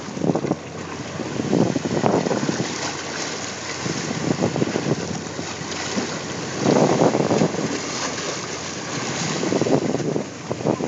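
Wind buffeting the microphone on a boat at sea, in gusts, over the wash of waves against the hull.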